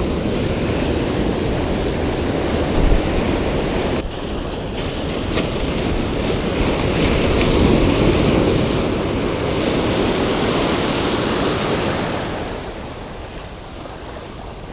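Ocean surf: broken waves and foaming whitewater washing in and out around the shallows. It swells to its loudest about halfway through, then eases off near the end.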